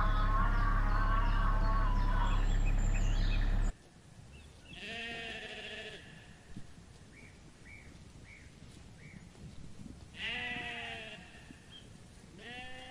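A loud steady low hum with a warbling tone above it for the first few seconds, then blackface sheep bleating: three wavering bleats, about five, ten and twelve and a half seconds in.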